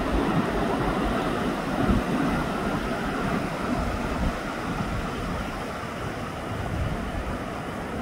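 Pacific Ocean surf breaking and washing over the shore, a steady rushing wash, with wind buffeting the microphone in low gusts.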